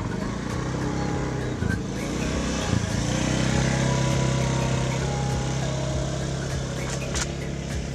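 A motor running steadily with a low hum, louder from about three seconds in, over background music.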